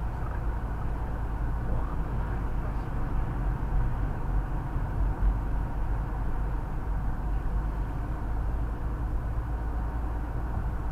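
Steady low rumble of a car's engine and tyre noise heard from inside the cabin while driving.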